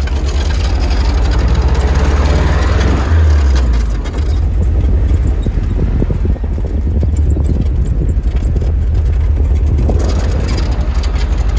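An off-road vehicle's engine running while driving over rough ground, heard from on board: a deep, steady rumble with rattling and clattering from the body. The rattling eases off about halfway through and picks up again near the end.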